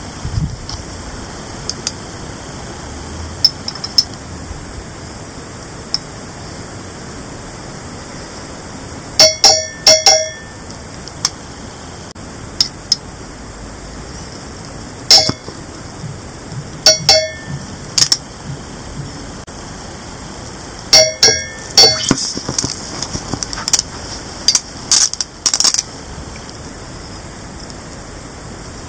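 Pieces of caesium metal reacting violently with water in a stainless steel dish: sharp bangs, several in quick pairs, each setting the metal dish ringing. Near the end comes a quicker run of smaller cracks.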